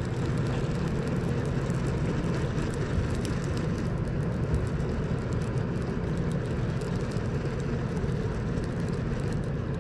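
Steady low mechanical drone, unchanging throughout.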